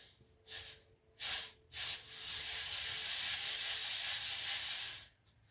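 Wheat grain scooped and poured with a metal bowl: a few short rushes of sliding grain, then a steady hiss of pouring grain for about three seconds that stops suddenly.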